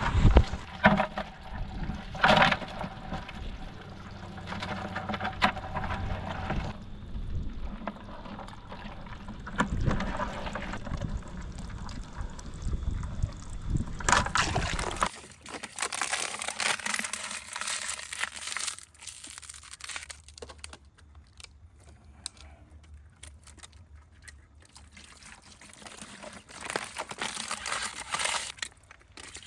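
Water pouring and trickling, with scattered knocks of handling; the background changes abruptly about halfway through.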